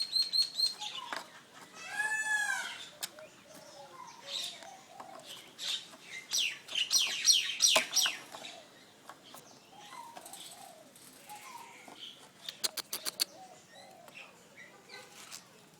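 Bird calls: a series of chirps and whistles, with an arched, rising-then-falling call about two seconds in and a quick run of falling calls around the middle. A few sharp clicks come later.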